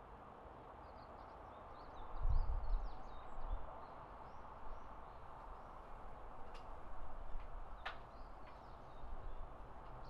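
Evening outdoor ambience: small birds chirping faintly over a steady background hum. A low rumble about two to three seconds in is the loudest part.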